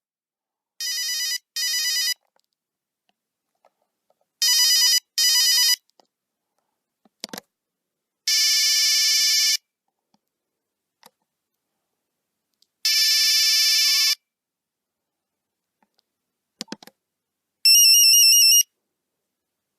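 Nokia 3310 mobile phone playing its monophonic ringtones one after another. A quick double-beep ring is given twice, then two longer single beep tones, then a fast warbling trill near the end, with faint clicks in between.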